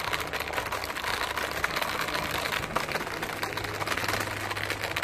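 Steady rough wind and movement noise on a handheld phone's microphone as it is carried quickly along a paved promenade.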